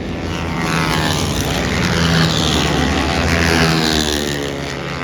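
A loud engine running at high revs, its level swelling and easing with a shifting whine over the top.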